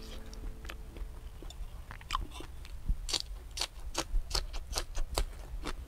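A person eating crab close to the microphone: chewing and crunching, heard as a rapid string of short sharp clicks and crackles that starts about two seconds in.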